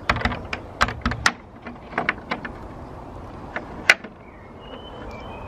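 Irregular clicks and knocks of someone walking while holding a camera, mostly in the first two and a half seconds, with one sharper click about four seconds in. A few faint, short, high chirps follow near the end.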